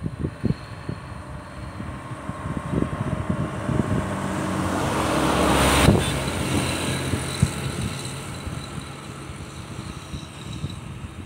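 A motor vehicle passing close by, off camera: its engine and road noise grow louder to a peak about six seconds in, then fade away.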